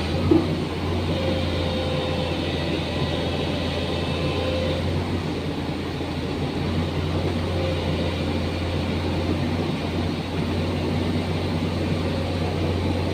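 Excavator's diesel engine running steadily with a low, even drone, a short knock just after the start.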